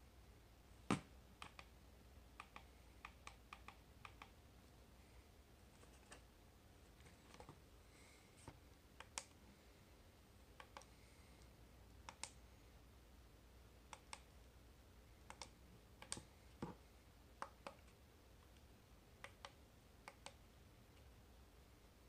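Plastic buttons on a wake-up light alarm clock clicking as they are pressed, in irregular single and double clicks, with one louder click about a second in.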